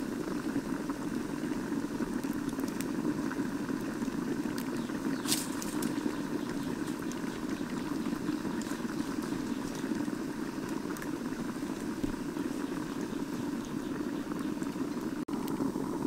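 Lidded pan cooking over an open wood fire: a steady low rushing sound with scattered sharp crackles from the burning wood, the loudest snap about five seconds in.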